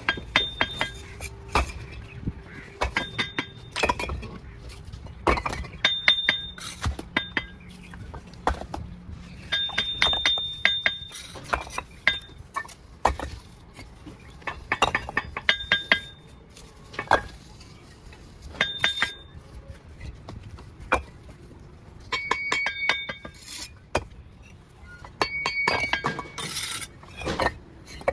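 Mason's steel trowel clinking and tapping on bricks as they are laid. The strikes come in quick clusters of several knocks, some with a short metallic ring.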